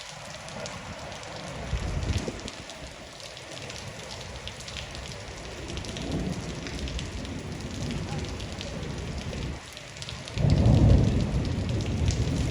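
Rain falling steadily, with a patter of many small drop ticks. A louder low rumble comes briefly about two seconds in and again from about ten seconds in to the end.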